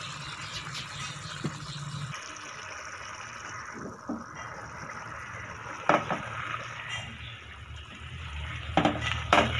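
Moong dal simmering and bubbling in a metal pot, then a wooden spoon stirring through it. The spoon gives a sharp knock against the pot about six seconds in and twice more near the end.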